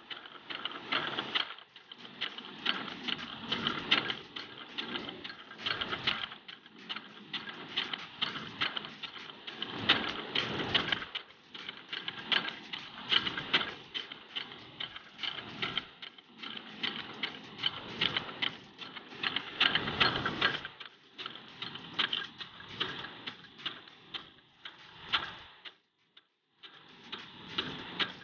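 Brass impact sprinkler watering turf: its drive arm ticks rapidly as it knocks the water jet and steps the sprinkler round, over the hiss of the spray, with a short break near the end.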